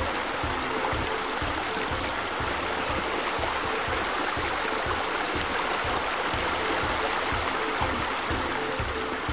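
Steady rushing and splashing water, like a waterfall or fountain, over background music with a regular low beat.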